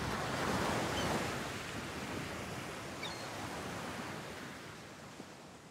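Sea surf: a steady rush of waves washing in, fading away gradually near the end.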